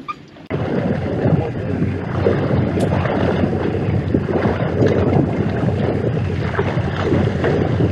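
Loud rushing noise of wind and water on a boat under way, coming in abruptly about half a second in and holding steady.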